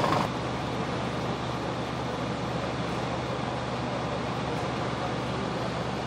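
Fire engines idling at the scene: a steady, even engine hum with a constant low drone and no changes.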